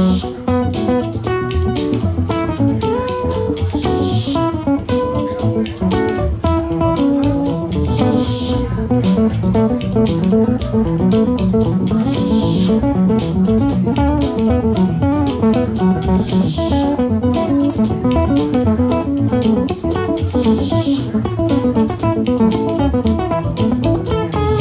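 Live band playing an instrumental passage: a guitar line over bass and a steady drum beat, with a cymbal crash about every four seconds.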